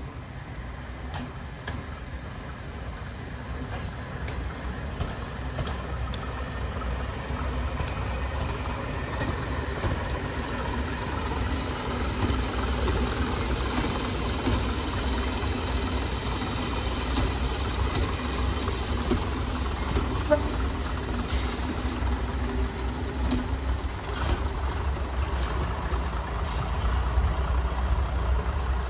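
Two-car first-generation diesel multiple unit approaching and passing close by, its diesel engines running with a low rumble that grows louder as it nears and stays loud as it passes.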